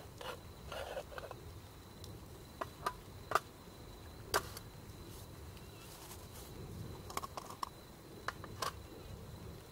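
Campfire wood crackling, with irregular sharp pops and snaps a second or so apart.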